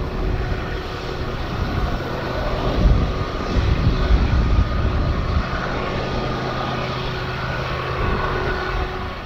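BNSF diesel-electric freight locomotives running with a steady engine drone and hum, over the low rumble of the moving train.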